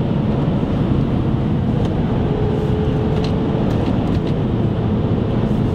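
2009 Mazda5's 2.3-litre four-cylinder engine running steadily under load in third gear, mixed with steady road and tyre noise.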